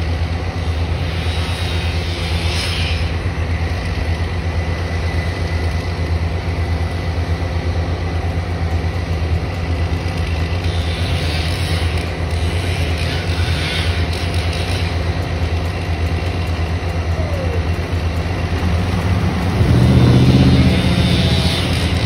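Heavy machinery engine running steadily at a low idle, getting louder for a couple of seconds near the end.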